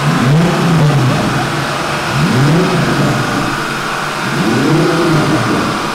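Turbocharged VR6 engine of an Audi A3 revved three times, each rev rising and then falling in pitch over about a second.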